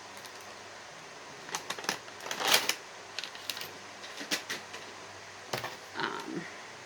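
Items being handled and set down: a scatter of clicks and taps, with a brief rustle about two and a half seconds in and another near the end.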